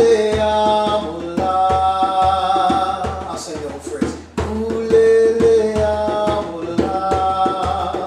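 A djembe-style hand drum is struck in a steady rhythm under a repeating melody of long held notes. The melody's phrase comes round about every four and a half seconds.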